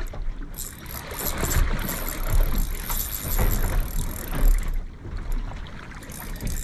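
Wind buffeting the microphone and water washing against a small boat's hull, as uneven low rumbles, with a faint high hiss through most of it.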